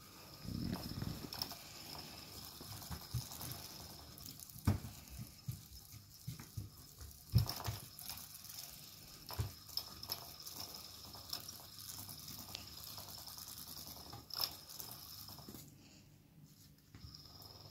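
Soft, irregular knocks, taps and scrabbling as a Maine Coon kitten paws and pounces at a plastic cat toy on carpet. A faint steady high whine runs underneath and cuts out briefly near the end.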